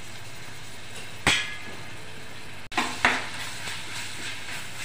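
Vegetables and ginger-garlic paste sizzling in oil in a metal pot while being stirred with a spoon, which knocks sharply against the pot about a second in and again near three seconds.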